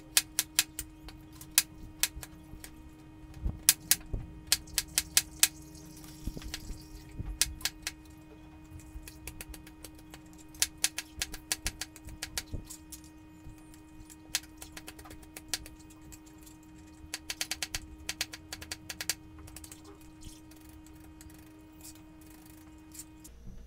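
Kitchen knife chopping carrots on a plastic cutting board: sharp knocks in quick runs with short pauses, as the carrot is diced into small cubes. A steady hum runs underneath and stops near the end.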